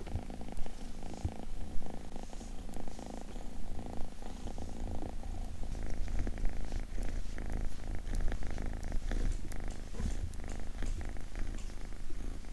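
Kitten purring steadily.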